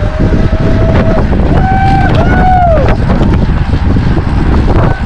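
Heavy wind buffeting the microphone of a camera on a bicycle ridden at racing speed. Over it come three drawn-out pitched sounds in the first three seconds, the last one falling in pitch at its end.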